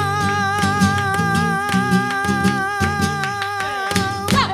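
Flamenco alegrías sung live with guitar: the singer holds one long note with a slight waver over quick strummed guitar strokes, and both cut off together on a closing accent near the end.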